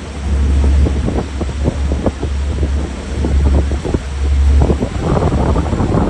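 Loud wind buffeting the microphone on a moving boat, over the rush of the boat's wake on the water.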